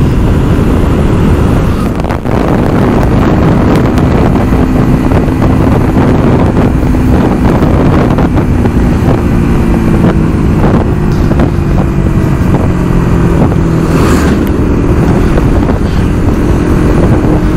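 Vehicle engine running at a steady cruising speed, its hum drifting slightly in pitch, with wind rushing over the microphone while travelling along the road.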